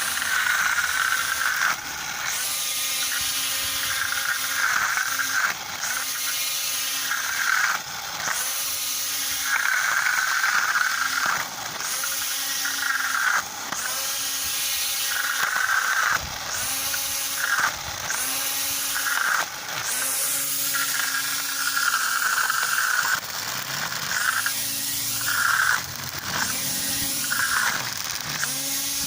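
Cheap battery-powered string trimmer's small electric motor whining at high speed, its pitch sagging and recovering over and over, every second or two, as the line bites into grass. It sounds like a weak motor bogging under load.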